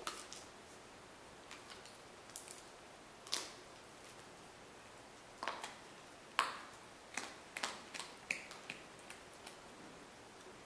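A puppy gnawing on a hard chew bone: irregular sharp crunches and clicks of teeth on the chew, about a dozen of them, the loudest a little over three seconds in and again about six and a half seconds in.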